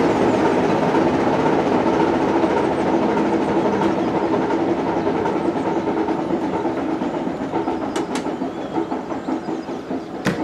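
Class 33 diesel locomotive's Sulzer eight-cylinder engine running as the locomotive draws slowly to a halt at the platform, the sound gradually dying down. A sharp click about eight seconds in and a louder knock just before the end.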